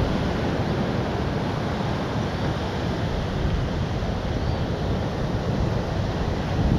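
Steady rush of ocean surf mixed with wind, with wind buffeting the microphone and giving a heavy low rumble.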